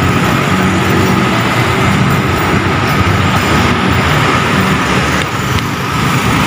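Road traffic of cars and motorcycles passing by, a steady loud noise of engines and tyres.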